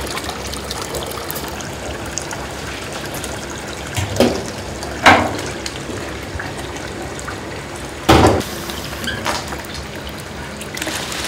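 Tap water running into a stainless steel sink full of water while blanched monkfish pieces are rinsed and moved about with a wire mesh ladle, with splashing and sloshing. A few louder, sharper sounds stand out around four, five and eight seconds in.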